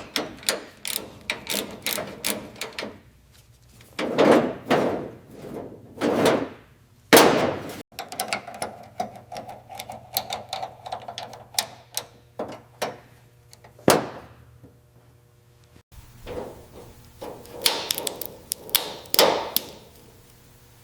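A run of sharp knocks, taps and clanks with a few louder whooshing sweeps, broken into short sections that cut off abruptly about eight and sixteen seconds in; a steady hum sits under the middle section.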